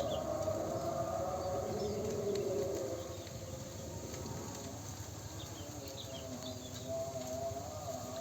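Outdoor ambience: a steady, slightly wavering hum, with a few short high bird chirps scattered through it.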